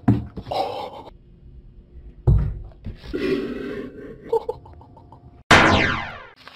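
Two thumps, each followed by a short breathy sound, as a kitten pounces and scampers. About five and a half seconds in comes a loud falling electronic sweep, the transition sound effect for a 'VS' title card.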